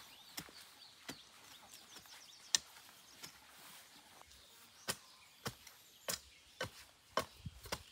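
Repeated sharp blows of a hand tool, irregular and roughly one every half second to a second, coming faster in the second half. Birds chirp faintly near the start.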